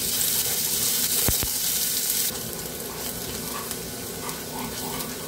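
Chopped onions sizzling in hot oil in a kadai with panch phoron and dried red chillies, stirred with a spatula. There are a couple of light knocks a little over a second in. The sizzle drops suddenly to a quieter level about two seconds in.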